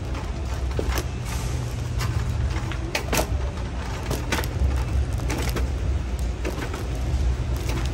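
Supermarket ambience: a steady low rumble with scattered light clicks and knocks, the sharpest about three seconds in.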